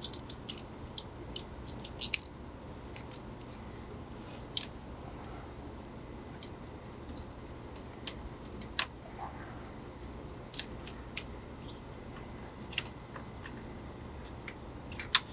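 Scattered metallic clicks and clinks of socket extensions and a ratchet being fitted together and worked in by hand, most of them in the first couple of seconds and a few single ones later, over a steady low hum.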